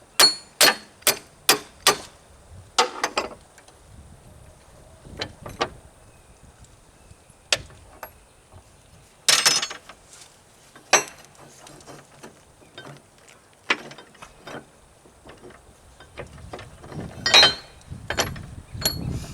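Metal-on-metal strikes on a loader tilt-cylinder pivot pin, driving the pin out: a quick run of ringing taps, about two a second, then scattered knocks and clanks of steel parts, with a louder rattle twice.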